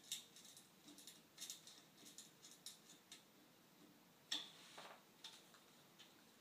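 Faint, irregular small metallic clicks and ticks from a screwdriver held in a screw head on a wire basket's bracket while the nut underneath is tightened, with one louder click that rings briefly about four seconds in.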